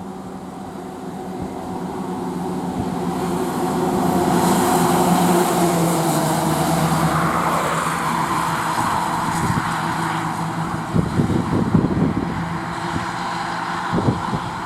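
Fire engine's diesel engine and tyres as the heavy truck drives past, the sound building to a peak and then easing off. There are a few knocks near the end.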